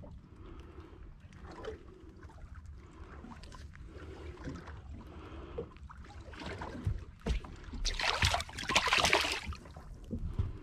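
A spurdog shark let go over the side of a boat, splashing into the sea about eight seconds in, a noisy splash lasting a second or so. Before it there is only a low, steady rumble with small scattered knocks.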